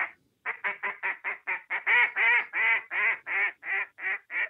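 A hand-blown duck call giving a long run of quick quacking notes, about five a second, as a hunter would call to ducks from the blind rather than on a contest stage. The notes are loudest in the middle and grow softer toward the end.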